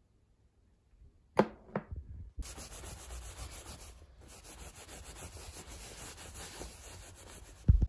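A tissue rubbed back and forth over a quilted fabric blanket, a steady scratchy scrubbing that lasts about five seconds. It comes after two sharp clicks about a second and a half in.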